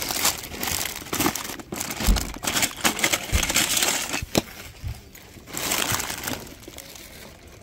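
Loose Lego bricks clattering and rattling in a plastic tub as a hand rummages through them, with plastic packets crinkling. The rummaging dies down near the end.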